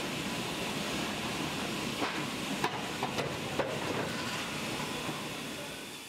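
Wood-Mizer WM3500 industrial band sawmill running, a steady noisy hum, with several sharp knocks or clicks about two to four seconds in.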